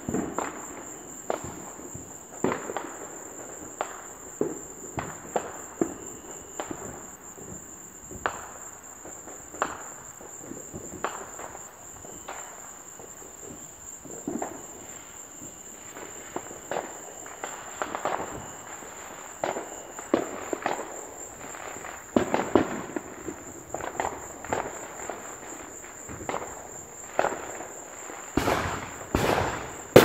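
Fireworks display heard from a distance: a long run of aerial shell bursts popping and booming, often about a second apart, over a steady high insect chorus. A louder stretch of noise comes near the end.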